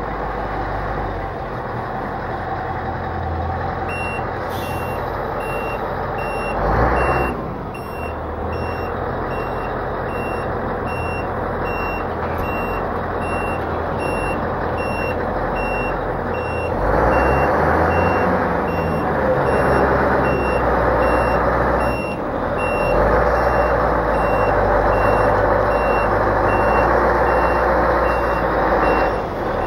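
Moxy MT40 articulated dump truck's diesel engine running, with its reversing alarm beeping in a steady series from about four seconds in, the sign that the truck is in reverse. The engine gets louder about halfway through as it is worked harder.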